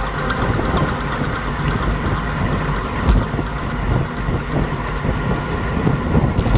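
Strong wind buffeting the microphone: a dense, uneven low rumble with a couple of sharp clicks, one about three seconds in and one near the end.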